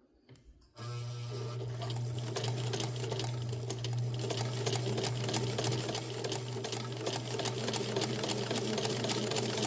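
Hamilton sewing machine starting up about a second in and running steadily, its motor humming under a rapid clatter of needle strokes as it sews a zigzag stitch.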